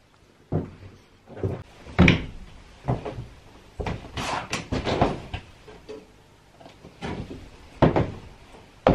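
Footsteps and knocks on the bare floor of an empty, stripped-out cargo van: a run of irregular thuds, the loudest about two seconds in and near the end, with a quick clatter of several knocks around four to five seconds in.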